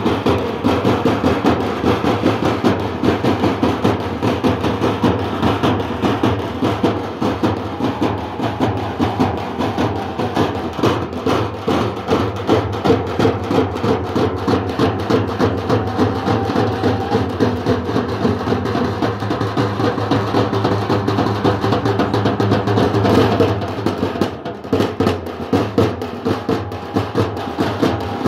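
A group of dappu frame drums beaten together in a fast, dense, continuous rhythm, easing briefly near the end before picking up again.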